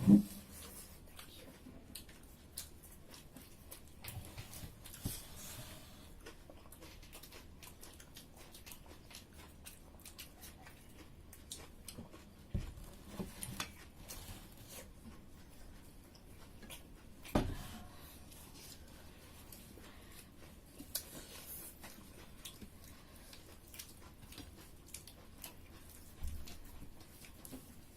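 People eating at a table: quiet chewing and many small clicks and crackles of food and tableware, with a few louder short knocks, the first right at the start.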